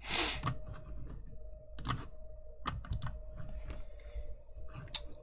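Scattered clicking from a computer mouse and keyboard, about half a dozen separate clicks, over a faint steady hum. A short rush of noise comes right at the start.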